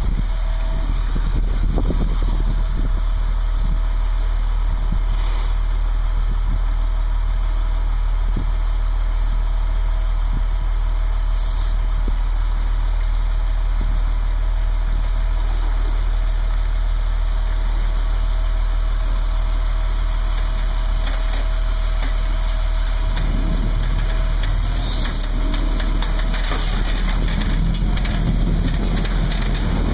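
Ford F650 medium-duty truck's engine idling steadily. About three-quarters of the way through, a heavier rumble with more hiss and splashing joins in as the boat's Yamaha outboards push it up onto the trailer.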